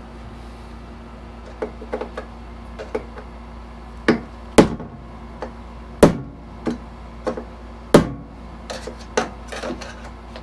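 Irregular knocks and clanks from parts and packing being handled while a stump grinder is unpacked from its shipping crate, with four louder sharp knocks among lighter taps, over a steady low hum.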